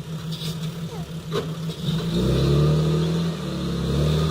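Diesel engine of heavy earthmoving machinery running steadily. About halfway through, a louder, deeper engine note comes in and holds, with a couple of faint knocks before it.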